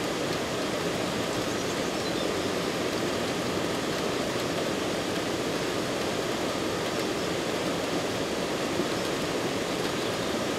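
A steady, even rushing noise with no tune, beat or pitch, holding the same level throughout.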